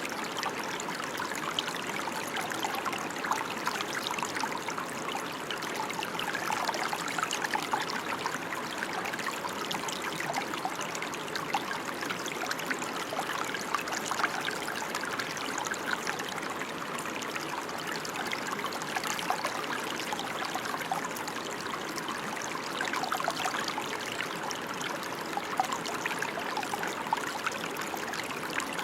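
Steady rain falling: an even, unbroken hiss made of countless small drop impacts.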